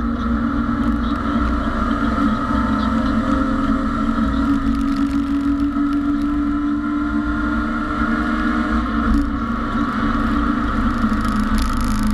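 BMW E30 race car's engine running hard at high revs, heard from inside the stripped cabin; its pitch climbs slowly for the first six or seven seconds, then eases back down.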